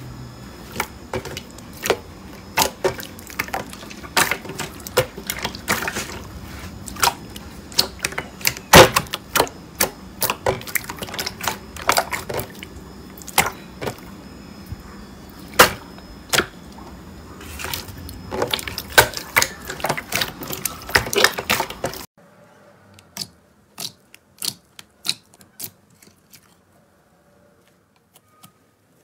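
Hands pressing and squeezing clear slime: irregular sticky pops and clicks, several a second. About 22 seconds in, the sound drops to a few sparse, quieter pops and fades almost to nothing near the end.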